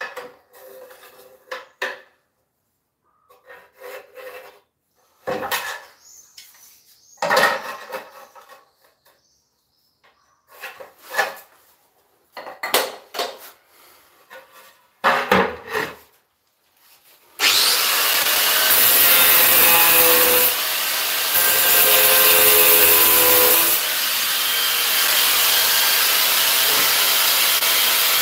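Short scraping and rubbing strokes as ceramic tile is worked by hand, then about two-thirds of the way through an angle grinder starts and runs steadily, cutting tile.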